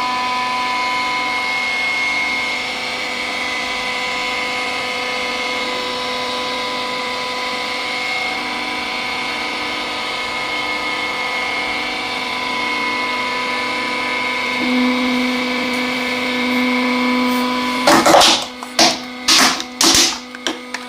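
A 100-ton hydraulic press's pump motor runs with a steady hum. About three seconds before the end comes a quick run of loud, sharp cracks and crunches.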